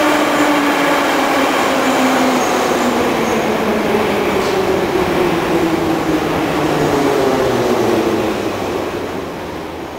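Moscow Metro train pulling into the platform and braking. Its motor whine falls steadily in pitch over the running and rolling noise of the cars, and the sound eases off near the end as the train slows.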